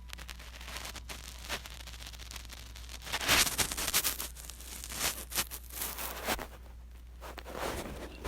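Irregular rustling and scraping noises, loudest in the middle, over a steady low hum.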